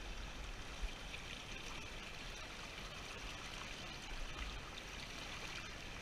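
Shallow stream running fast over stones: a steady rush of water.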